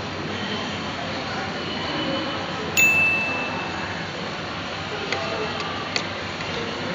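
A single bright ding about three seconds in, a clear ringing tone that fades over about half a second, over a steady background hum with a couple of faint clinks near the end.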